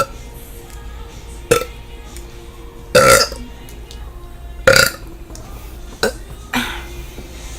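A young woman burping over and over: a series of separate burps about one to two seconds apart, the longest and loudest about three seconds in and another near five seconds in, the rest shorter.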